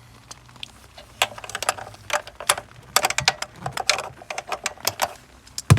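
Hand ratchet wrench clicking in quick runs as a bolt is worked loose, followed by a single sharp knock of metal near the end.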